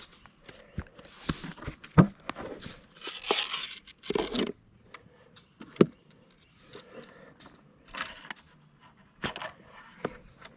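Close handling noises: scattered sharp clicks and knocks among bursts of rustling and scraping, the loudest clicks about two seconds and six seconds in.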